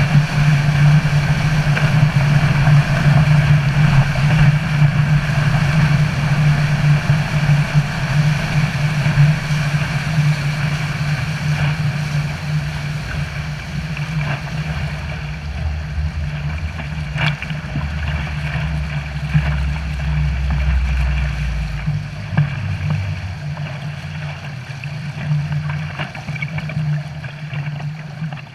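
Outboard motor running steadily with water rushing and splashing in the wake, easing off in level over the last few seconds.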